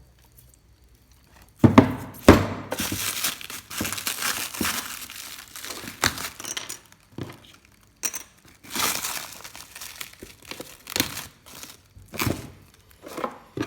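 Handling noise: rustling and crinkling with scattered sharp clicks and knocks, starting after a short pause, as a unit and its packaging are moved about by hand.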